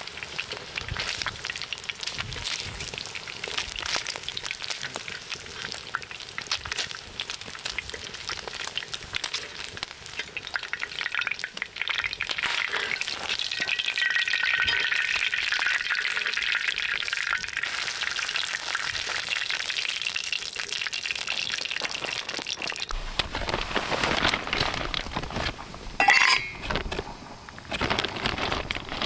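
Pork belly sizzling and spitting in its fat on a black griddle plate over a fire pit, a dense crackle that grows louder about 12 s in. Towards the end it gives way to a few clinks of dishes and cups.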